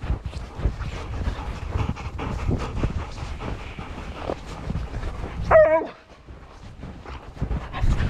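Footsteps crunching through wet snow, and about five and a half seconds in a dog gives one short, high, wavering whine.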